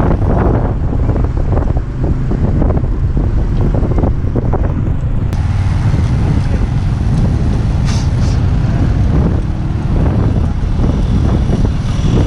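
Wind buffeting a moving camera's microphone: a loud, steady low noise with irregular gusts, mixed with road noise as it travels with a group of road cyclists.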